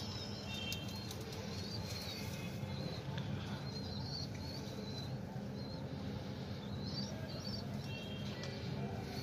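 Pigeons feeding on scattered grain, with wings flapping and many short high bird chirps throughout, over a steady low rumble.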